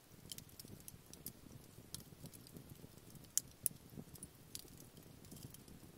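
Wood campfire burning, with scattered irregular crackles and pops and two louder pops a little past the middle.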